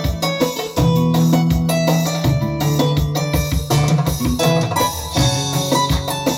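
Live band music with keyboard, bass, guitar and drums playing through a PA system at a sound check. Sustained keyboard chords sit over a steady bass line and regular drum hits.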